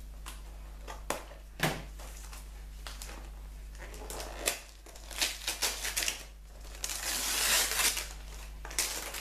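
Gift wrapping paper being crinkled and torn open by hand. Scattered crackles, then a longer, louder rustle near the end.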